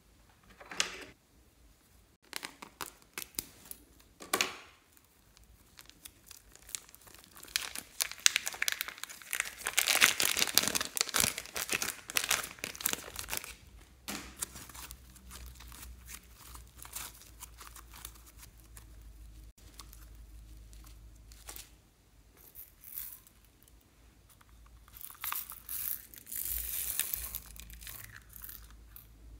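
Thick slime squeezed out of a plastic piping bag, with wet crackling and crinkling. The crackling is densest and loudest for several seconds near the middle, quieter handling follows, and another crackling burst comes near the end.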